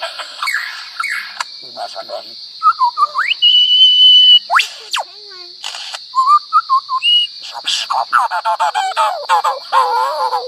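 Lyrebird singing a run of mimicked calls: varied whistles and gliding notes, a loud held whistle about a third of the way in, a sharp upward sweep, then rapid warbling toward the end. A steady high-pitched drone runs underneath.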